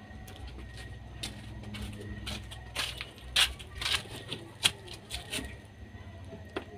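A puppy eating from a shallow tray: scattered sharp clicks and taps of its mouth and the tray, bunched in the middle of the stretch, over a low steady hum.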